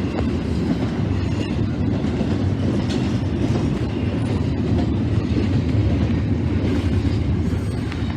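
Freight train rolling past: a steady low rumble of railcar wheels on the rails, with faint scattered clicks.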